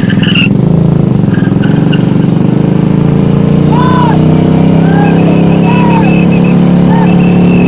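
Yamaha R15 V3's single-cylinder engine running steadily at cruising speed on the move. A few short, high arched chirps sound over it in the middle.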